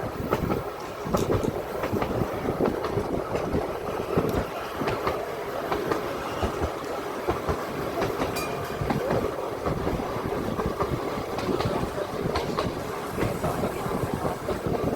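Narrow-gauge electric tram of the Seaton Tramway running along the track, heard from aboard: a steady rumble of wheels on rail with frequent short clicks and knocks from the rail joints.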